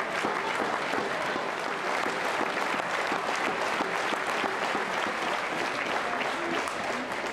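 Arena crowd applauding, with dense clapping that eases off near the end.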